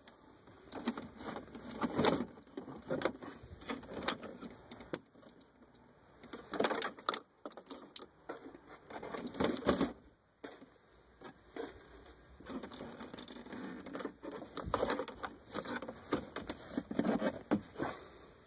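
Wiring-harness plastic connectors and console trim being handled and shifted by hand: irregular rustling with scattered clicks and light knocks.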